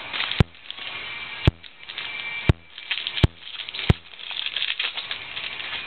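Close-up handling noise as trading cards and a card pack are worked near the microphone: five sharp knocks about a second apart, with crinkling and rustling between them.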